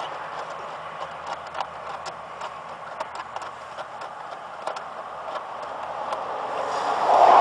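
Scattered light clicks and taps at an uneven pace over a steady hiss that grows louder near the end.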